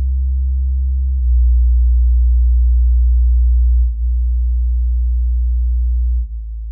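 Bass test tones played through an active bookshelf speaker: a steady, very low hum that steps to a new pitch about a second in and again about four seconds in, then drops in level just past six seconds.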